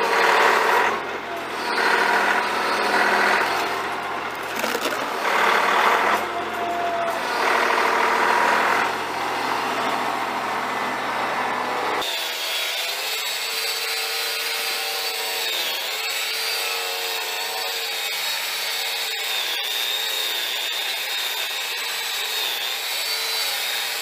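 A compact tractor's engine running steadily while its loader works the dirt, with repeated surges about every two seconds. About halfway through, the sound changes to the steady high whine of a small motor running.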